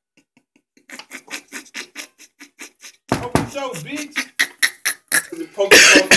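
A quick run of faint clicks, about six a second, then a man laughing loudly from about three seconds in, with a loud burst near the end.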